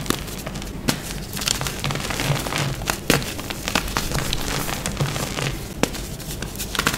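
Gym chalk being crushed and crumbled by hand, giving dry, crunchy crackles as small chunks break up into powder.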